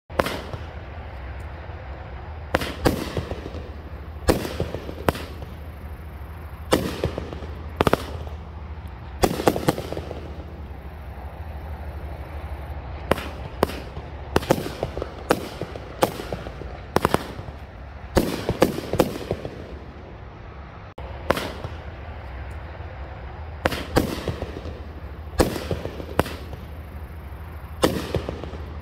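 Elite Fireworks Beta Zoom, a 12-shot 350 g consumer firework cake, firing: sharp shots going off one after another, some in quick clusters, with crackling bursts after them.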